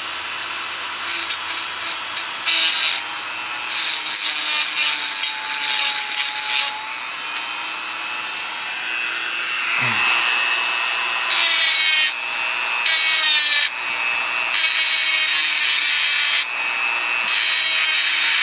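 Dremel rotary tool with a small abrasive stone running steadily and grinding down the heads of brass brake-shoe rivets. The scraping grind comes and goes as the stone is pressed on and eased off. About ten seconds in there is a brief downward sweep in pitch.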